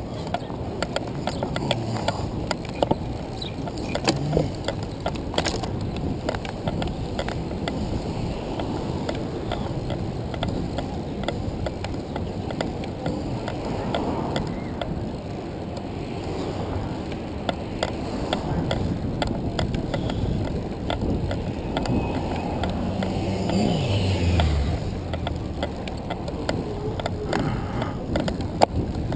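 Handcycle drivetrain running on the road: the chain and gears click and rattle over a steady rumble of tyre and road noise. About three-quarters of the way through, a low sound slides down in pitch at the window's loudest moment.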